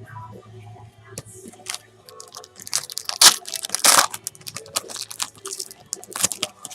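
Foil trading-card pack wrapper crinkling and crackling as it is handled and torn, with cards rustling; the crackles come in quick irregular bunches, loudest around the middle.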